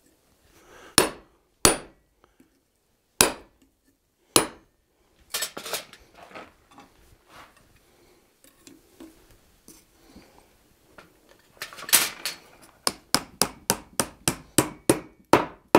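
Hand hammer striking a ball punch and hand fuller set on a 1/8-inch sheet-iron butterfly, backed by a wooden stump, to shape the butterfly's body. First come single metallic blows spaced a second or more apart. From about twelve seconds in there is a quick steady run of blows, about three a second.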